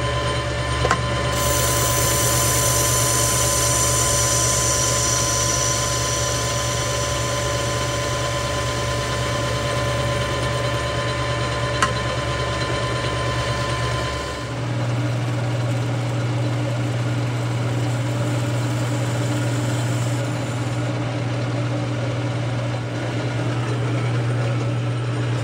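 A 13x40 manual metal lathe running steadily under power while a carbide insert faces the end of a 304 stainless steel bar, with a faint hiss from the cut. About halfway through, the steady hum shifts to a different, deeper drone as the work moves on to center drilling.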